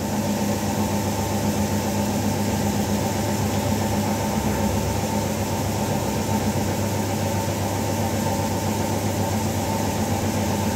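A steady machine hum with a low drone, unchanging throughout.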